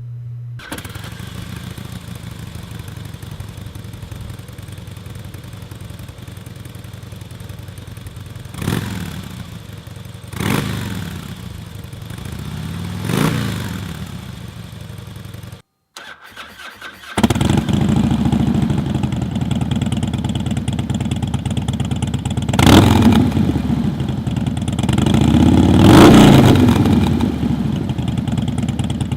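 Harley-Davidson Softail Night Train V-twin idling and blipped three times through the stock exhaust. After a brief cut to silence about halfway through, it idles again, louder and deeper, through a Bassani Road Rage 2-into-1 short exhaust, with two more revs.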